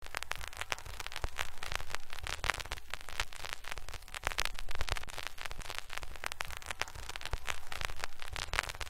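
Steady crackle and hiss made of many fine clicks, with a low hum underneath.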